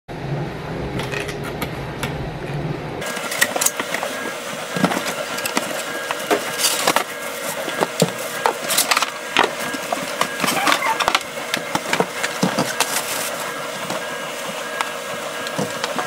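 Cardboard coffee-maker box being handled and opened: flaps and cardboard inserts rustling, with many short knocks and scrapes.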